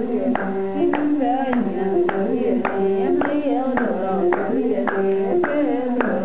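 Women singing a Tuareg song over steady hand claps, about two a second, with an imzad, the bowed single-string fiddle, playing along.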